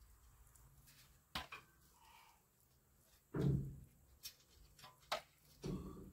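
Footsteps and knocks as a person climbs a metal stepladder against the side of a fire truck: a sharp knock, then a heavy thump about three and a half seconds in, the loudest sound, a few lighter clicks, and another thump near the end.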